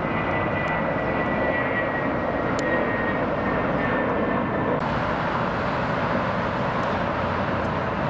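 Jet airliner engines at high power on take-off: a steady rumbling roar with a thin high whine slowly dropping in pitch. The sound changes abruptly about five seconds in.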